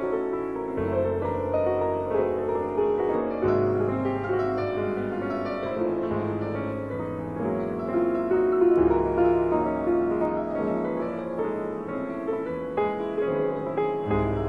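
Piano music, its low bass note changing every few seconds.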